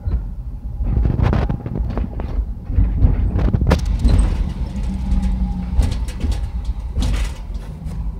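Low, steady rumble of a car's engine and tyres heard from inside the cabin while it creeps along in traffic, with a few brief knocks.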